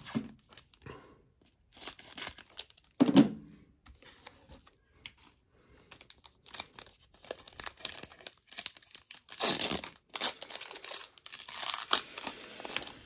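Foil wrapper of a hockey trading-card pack being handled, then crinkled and torn open by hand: a run of crackling, rustling tears that grows denser and louder in the last few seconds. A brief low sound stands out about three seconds in.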